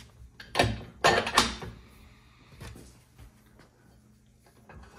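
Steel pivot bolt being worked through the holes of a dump trailer's tilting frame and bracket: a short metal scrape about half a second in and a longer scrape around a second in, then a few faint clinks.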